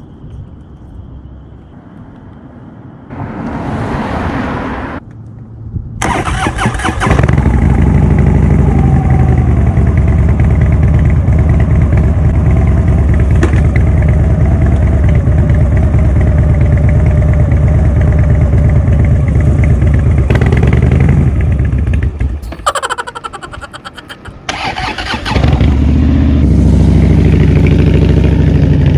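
Harley-Davidson Dyna Street Bob's air-cooled V-twin, fitted with a FAB28 Blackfly exhaust, starting about six seconds in and running loud and steady at idle. Its sound dips for a couple of seconds around twenty-three seconds in, then comes back up loud.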